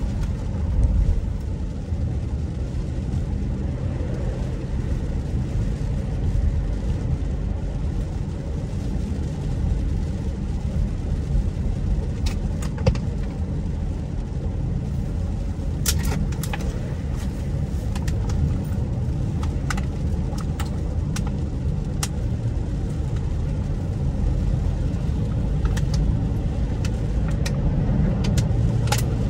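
Steady low road and engine rumble inside the cabin of a moving car, with scattered sharp clicks and ticks from about twelve seconds in.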